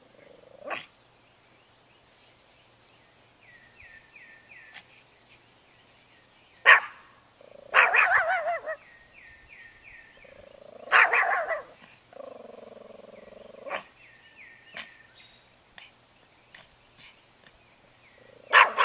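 Small dog barking at a parked lawnmower, in single sharp barks and a couple of short runs of barks, several seconds apart.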